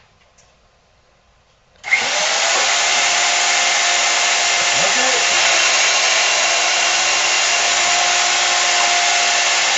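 Benchtop drill press switched on about two seconds in: its electric motor starts suddenly and then runs at a loud, steady hum.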